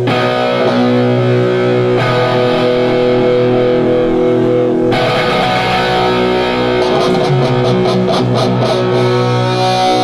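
Crossover thrash band playing live: distorted electric guitar holding ringing chords that change about two and five seconds in, with evenly spaced cymbal hits joining in the last few seconds.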